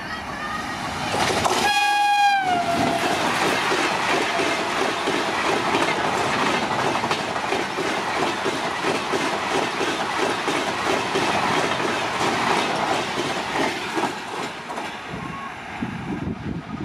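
An electric locomotive's horn sounds once, for about a second, about a second and a half in, and dips in pitch at its end. Then a train of LHB coaches, the IRCTC Tejas Express, rushes past at full speed with a fast, even clatter of wheels over the rail joints, which fades near the end.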